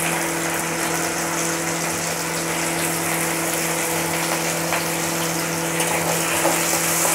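Chopped onion and green chillies sizzling steadily in hot oil in a karai, just after going into the pan, over a steady low hum.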